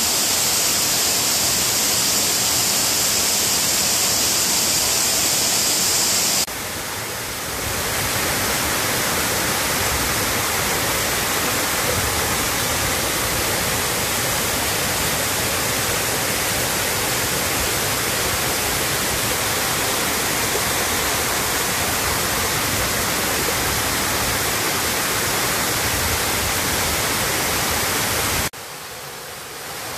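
Mountain waterfall cascading over rock: a steady rush of water. It drops briefly in level about six seconds in and again near the end, where the recording cuts between shots.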